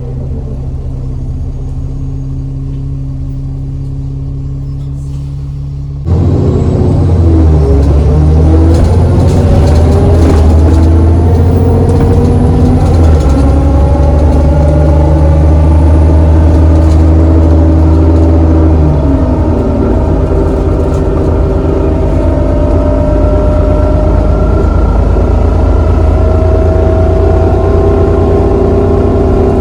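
Alexander Dennis Enviro400 double-decker bus heard from on board. Its engine idles at first; about six seconds in it gets suddenly much louder and the bus pulls away, the engine and drive note rising steadily in pitch. Around two-thirds of the way through the note drops as the gearbox changes up, then rises again, with a faint high whine over the first half of the pull-away.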